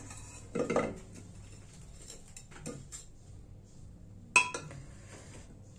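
A steel slotted spoon scraping and knocking against an aluminium pressure cooker and a steel bowl as boiled elephant foot yam is lifted out. There is a short clatter just under a second in and a sharp metallic clink with a brief ring about four and a half seconds in.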